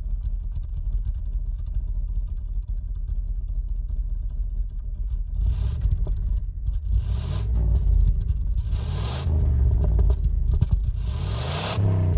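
Combustion car engine rumbling at idle, then revved in four short bursts about every two seconds from midway on, each rev bringing a rising and falling pitch and a rush of high hiss.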